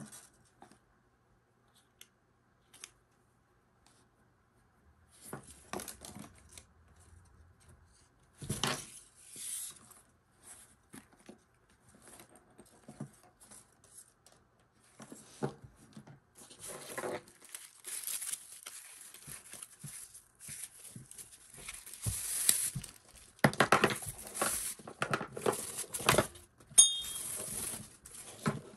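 Light rustles and clicks of a bag being handled, then, over the second half, clear plastic wrapping crinkling and tearing as a bag's shoulder strap is unwrapped, loudest near the end.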